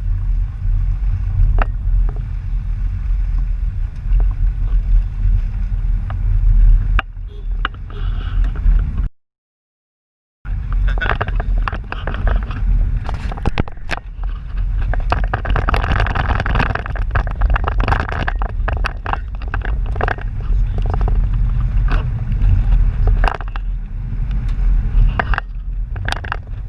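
Road and engine rumble inside a moving vehicle, with frequent small rattles and knocks over the steady drone. The sound cuts out completely for about a second near the middle.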